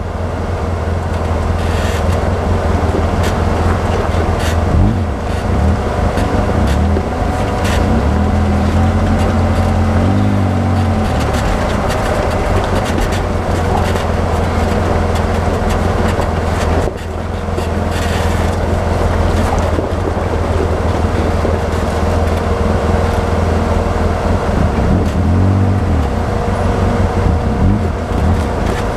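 Polaris RZR side-by-side's engine running steadily as it drives a rocky trail, its note rising and falling in short revs about ten seconds in and again near the end. Scattered knocks and rattles from rocks under the tyres and the chassis are heard throughout.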